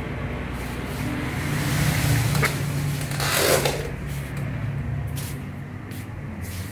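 Low engine hum of a motor vehicle passing in the street, swelling to a peak about halfway and then fading, with a short rushing noise at its loudest.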